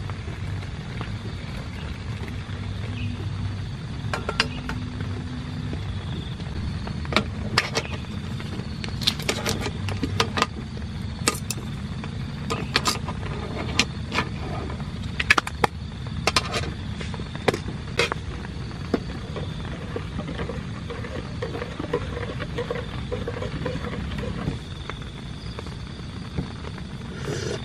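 Heavy rain on a tent: a steady low rush with irregular sharp taps of individual drops, thickest in the middle stretch.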